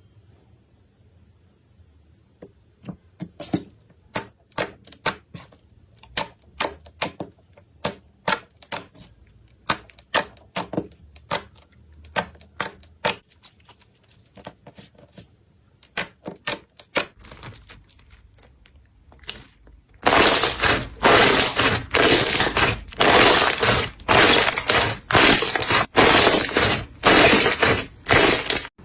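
Slime being worked by hand: sharp clicking pops about twice a second, then, from about twenty seconds in, a much louder run of crackly squishes about once a second.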